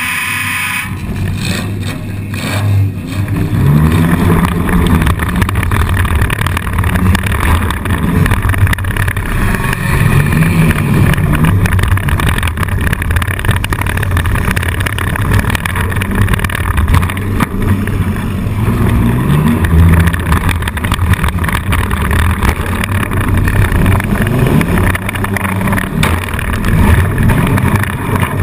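Four-cylinder demolition derby car engine, heard loud from inside the car, revving up and down again and again as it drives.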